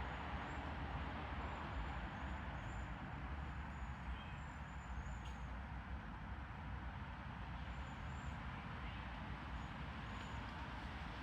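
Steady outdoor background rumble with faint, repeated high chirps over it, and one sharp knock about five seconds in, of the kind that comes from a chestnut falling and landing.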